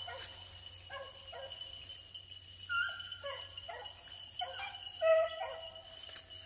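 Beagles baying and yipping in a scattered string of short calls, the loudest about five seconds in: hounds giving voice as they trail a rabbit.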